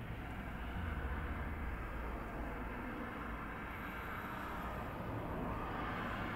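Steady low background rumble with an even hiss, like distant road traffic; the foraging curlew makes no calls.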